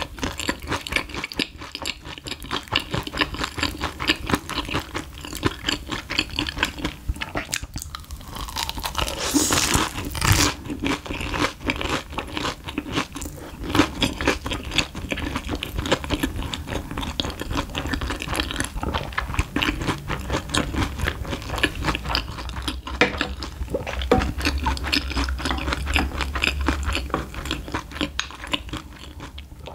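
Close-miked crunching and chewing of a crispy deep-fried Monte Cristo sandwich: a dense run of irregular crackles and mouth sounds, with a louder crunchy stretch about ten seconds in.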